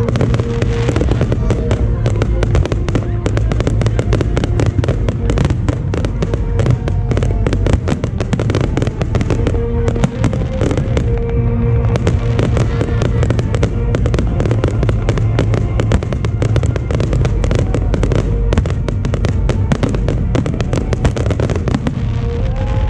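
Aerial fireworks display going off continuously: dense, rapid crackling and bangs over a steady low rumble of bursts. Music plays alongside.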